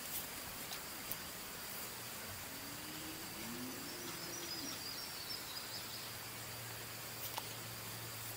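Quiet woodland ambience: a steady high insect drone with faint bird calls around the middle, and a few small clicks, one near the end.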